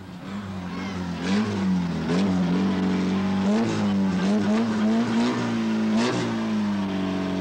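Car engine revving up and down over and over as the stunt car is driven, its pitch falling and climbing again about once a second.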